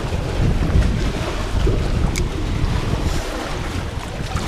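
Wind rumbling steadily on the microphone over water lapping, with one short click about two seconds in.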